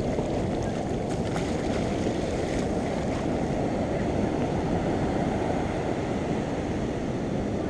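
Steady, dense rumble of wind buffeting the microphone mixed with sea surf, with a few faint crackles.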